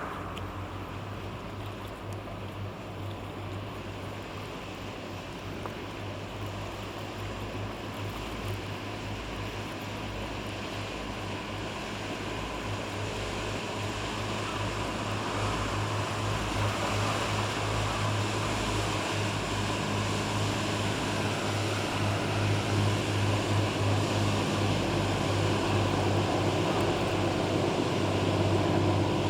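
Engine of a Japan Coast Guard patrol boat running with a steady low hum over the wash of water, growing gradually louder as the boat approaches.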